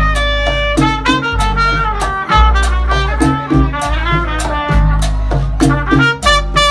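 Live Latin jazz band playing, a trumpet taking the lead line at the microphone over a repeating bass pattern and driving Latin percussion, with saxophone in the horn section.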